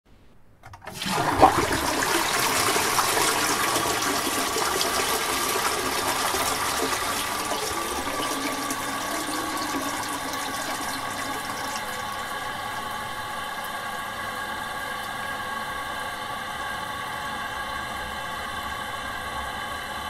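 Toilet flushing: a sudden rush of water about a second in, which eases off gradually into a steadier hiss with a faint steady whine in the second half.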